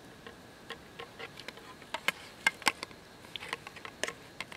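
Campfire crackling and popping: irregular sharp snaps, a few louder ones about two seconds in.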